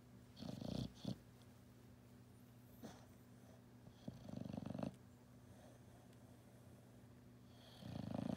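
A sleeping dog snoring: three rasping snores, each about half a second to a second long, roughly every three and a half to four seconds.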